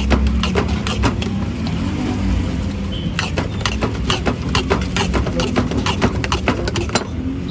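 Steel spoon clinking rapidly against a steel bowl as potato chaat is tossed and mixed, several clinks a second, thinning briefly about two seconds in, over a low steady hum of street noise.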